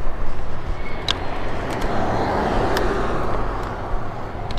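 Wind and road rumble on the microphone of a moving e-bike, with a car passing about halfway through, rising and then fading. A few sharp clicks are heard along the way.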